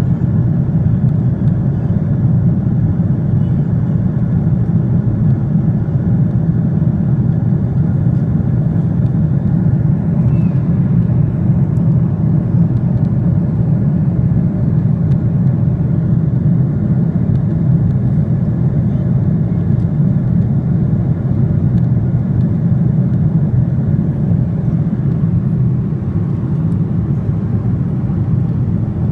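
Steady low rumble of an airliner's cabin noise: engine and airflow noise heard from inside the passenger cabin.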